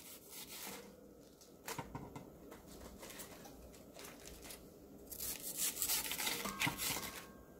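Kitchen knife cutting through crisp raw napa cabbage leaves in a stainless steel bowl: a couple of faint crunches about two seconds in, then a denser run of crisp cutting and leaf-crackling in the second half.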